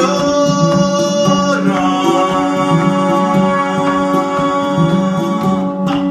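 West African ngoni plucking a repeating low figure while a trombone plays sustained notes over it, a second long note held steadily from about two seconds in.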